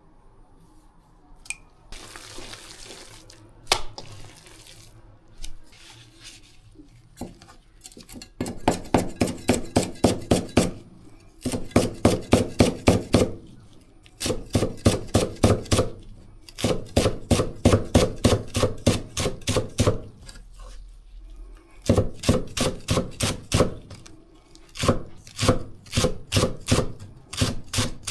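Kitchen knife chopping celery on a cutting board in quick runs of about seven strokes a second, with short pauses between runs.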